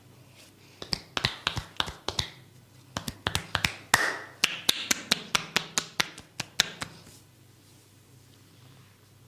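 Quick rhythmic series of sharp hand slaps from a barber's percussive massage, about four a second. A short run comes about a second in and a longer run from about three seconds to seven.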